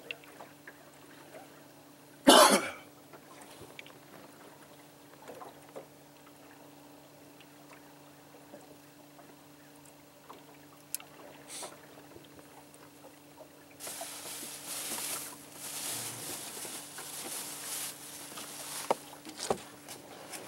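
Water moving around a small boat on a lake, under a low steady hum. A single loud, short noise comes about two seconds in, and louder, fluttering water noise starts about two-thirds of the way through.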